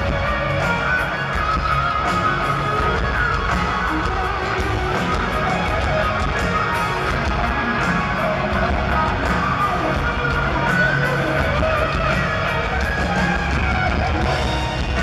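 Live rock band playing at full volume, with electric guitar to the fore over bass and drums, heard from among the audience.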